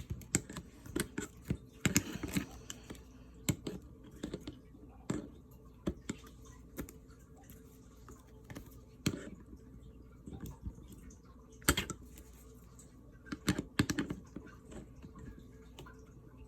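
Irregular clicks, taps and light knocks as a weapon light's rail clamp on a pistol is worked with a tool and tightened a little more. A few louder knocks come about 2, 12 and 14 seconds in.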